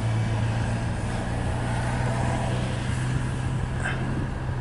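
Steady low engine hum of an idling vehicle, unchanging throughout, with a faint brief higher sound about four seconds in.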